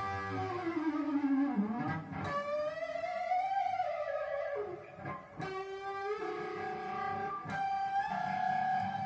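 ESP E-II electric guitar playing a slow, sustained lead melody through a Line 6 DL4 delay pedal, several notes dipping and gliding in pitch on the Floyd Rose tremolo.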